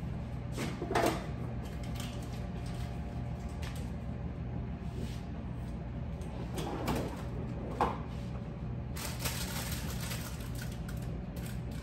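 Rummaging in an open refrigerator: bottles and jars knocked against the door shelves, with a few sharp knocks and some rustling near the end, over a steady low hum.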